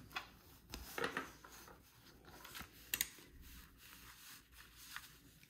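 A few short scrapes and rubs on a scratch-off lottery ticket, the strongest near the start, about a second in and about three seconds in, then fainter.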